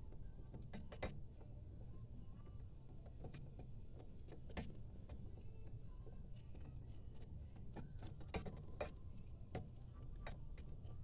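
Faint, irregular metallic clicks and taps of hand tools and parts as a pickup tube is worked into a small-block Chevy oil pump, over a low steady hum.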